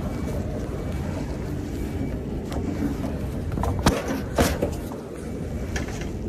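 A few sharp knocks and clanks of a wooden side board and metal fittings being handled on a curtainsider trailer, the loudest two close together about four seconds in, over a steady low rumble.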